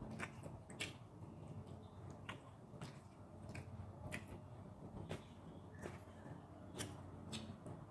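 Close-miked eating: chewing soft food (scrambled egg and shrimp), with about a dozen irregular wet mouth clicks and lip smacks over a low steady hum.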